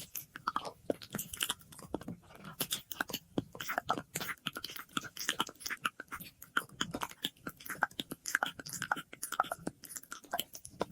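Close-miked ASMR mouth sounds: a rapid, irregular run of wet clicks, lip smacks and tongue pops, with an echo effect on the audio.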